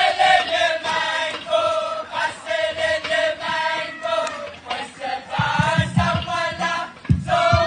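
A group of voices chanting together in unison for a traditional Pohnpeian dance. A few low thumps come through after about five seconds and again near the end.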